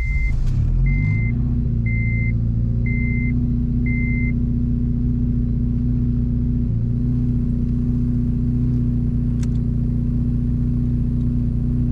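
Turbocharged Honda Civic Si four-cylinder engine just after a cold start, its revs falling from the start-up flare into a steady idle within the first second or so. A high dashboard chime beeps about once a second for the first four seconds.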